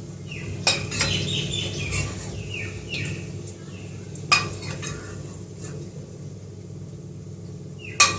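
Metal kitchen utensils clinking and knocking against a cooking pan, a few separate strikes with the loudest near the end. Short falling bird chirps come in the first few seconds, over a steady low hum.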